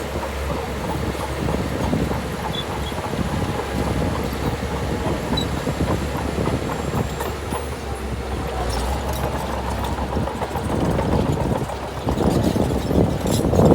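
Diesel engine of heavy earthmoving machinery running steadily with a low hum and irregular clanking and rattling, growing louder about twelve seconds in.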